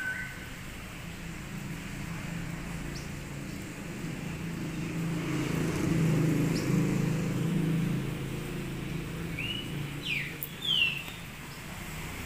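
A passing motor vehicle's engine hum that swells to its loudest in the middle and fades again. A few short, sweeping bird chirps come near the end.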